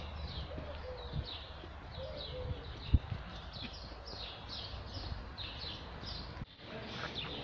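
Small birds chirping over and over in short falling chirps, about two a second, over a steady low rumble. One sharp knock comes about three seconds in.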